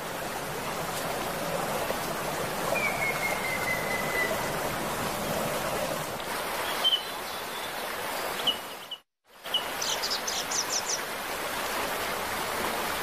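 Steady rush of a small stream with birds calling over it: a long falling whistle a few seconds in, a few short chirps, then a quick run of about six high chirps. The sound cuts out for half a second near the middle.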